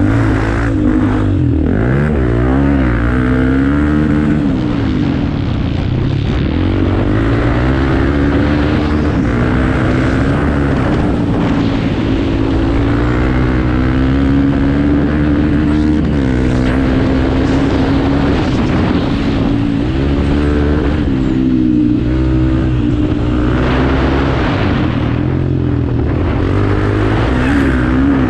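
Off-road motorcycle engine running hard, its pitch rising and falling over and over as it revs up and eases off.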